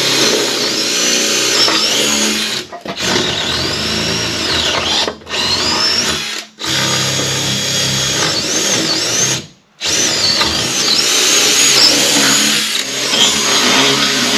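DeWalt 18V cordless drill boring 12 mm bolt holes through the pre-drilled holes of a steel beam into the timber trimmer behind it. The drill runs in several bursts, stopping briefly about 3, 5, 6 and 10 seconds in, with a high squeal that wavers in pitch.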